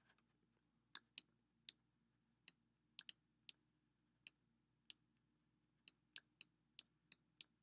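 Faint, sharp clicks at irregular spacing, about fifteen in all, from handwriting being entered on a computer as pen strokes are put down.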